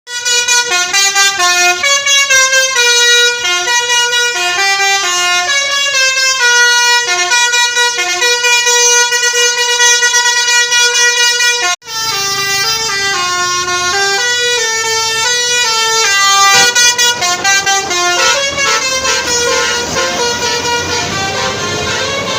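Tour bus's telolet basuri multi-tone air horn playing a quick melody of stepping notes over and over. It cuts off sharply about twelve seconds in and starts again, with engine and street rumble underneath for the rest.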